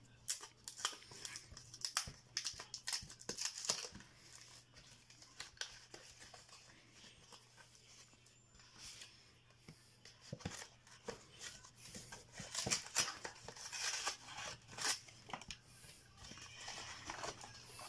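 Cardboard Yu-Gi-Oh structure deck box being opened by hand: a run of crisp tearing, scraping and rustling sounds as the flap is pulled open and the inner cardboard tray slid out, busiest near the start and again in the last few seconds.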